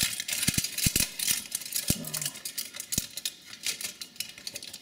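Aluminium foil crinkling and crackling as fingers press and fold it around a circuit board's connectors, with a few soft knocks of the board being handled.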